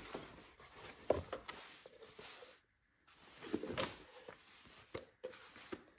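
Cotton denim jeans rustling and brushing against the floor as they are spread out and smoothed by hand. There are a few short rustles, the longest about three and a half seconds in, and a couple of faint ticks near the end.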